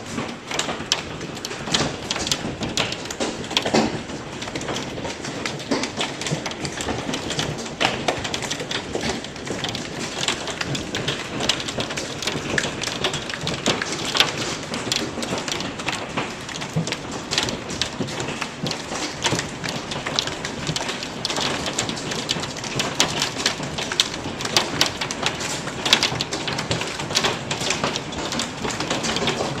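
Golf-ball-sized hailstones pelting down, a dense irregular clatter of separate hard impacts, some louder than the rest, over a steady hiss.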